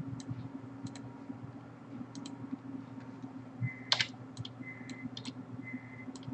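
Scattered clicks and taps of a computer keyboard and input device as ZBrush is worked, a small cluster of louder clicks about four seconds in, over a steady low hum.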